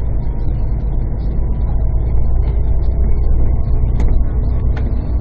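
Steady low rumble of a vehicle driving along a road, heard from on board, with a faint click about four seconds in.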